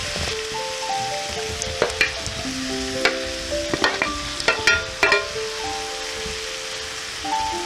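Chicken breasts and onions sizzling steadily in a frying pan as fried potato cubes and carrot slices are tipped in from a bowl. Between about two and five seconds in there is a run of sharp clicks and knocks as the pieces drop into the pan and the spatula pushes them off the bowl.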